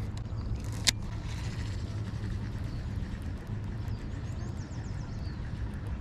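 Steady low outdoor rumble with one sharp click about a second in. A few faint high chirps follow near the end.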